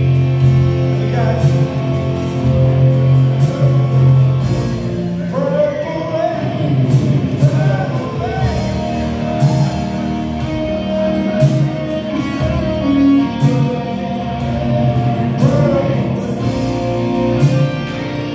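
Live amplified band playing a slow rock ballad: electric guitar, bass and drums under a sung melody.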